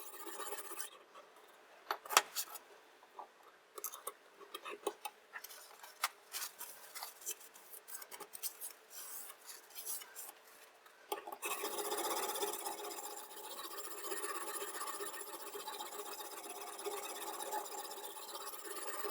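Diamond sharpening stone scraping along a chef knife's edge: a series of irregular rasping strokes with clicks. From about eleven seconds in a steadier, louder mechanical hum takes over.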